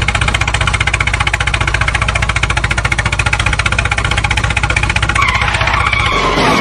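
Tractor engine chugging steadily with rapid, even pulses over a low hum; the sound drops away near the end.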